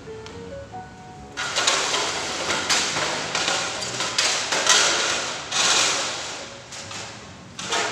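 Faint background music with a simple stepping melody, then, about a second and a half in, loud rustling and crackling full of clicks and knocks, like things being handled, which swells and fades several times.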